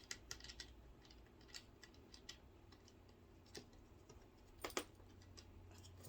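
Faint scattered clicks and taps of plastic parts and cables being handled, with a louder double clack about three-quarters of the way in.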